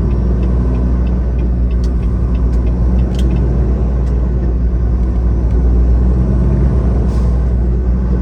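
Tractor-trailer cruising down the highway, heard from inside the cab: a steady low engine drone with road rumble, and a few faint ticks.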